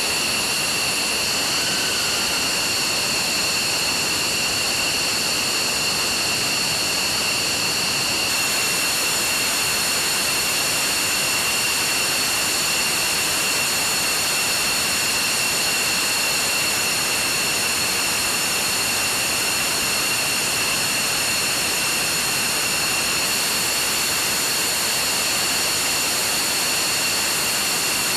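F-15E Strike Eagle jet engines running at idle: a steady rushing hiss with a high-pitched whine that holds on one pitch throughout.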